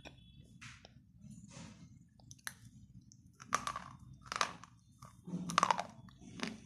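Wet slate pencils being bitten and chewed: a series of crunches about one a second, louder from about halfway through.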